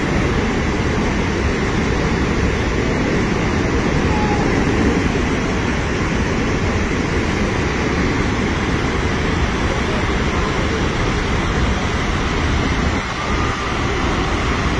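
Steady, deep roar of water plunging over Niagara's Horseshoe Falls, with a brief dip near the end.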